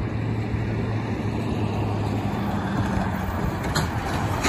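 Road traffic: a pickup truck towing a trailer and a car drive over the railroad tracks, with a steady engine hum and two sharp knocks near the end.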